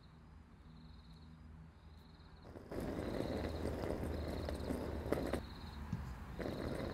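Crickets chirping at a steady pace, about one short chirp a second, over a low steady hum. About three seconds in, a louder hiss of background noise comes in, with a couple of sharp clicks near the end.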